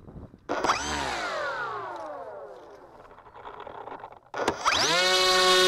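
Electric motor and propeller of a Phantom FX61 flying wing, given a short burst of throttle about half a second in and then winding down, its whine falling in pitch over about two seconds. About four seconds in it spins up fast again and holds a steady whine as power is set for the launch.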